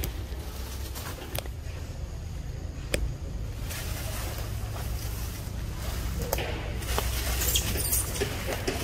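Scattered clicks and rustles from macaques moving about on a tree branch, over a steady low rumble. A short cluster of high, sharp sounds comes near the end.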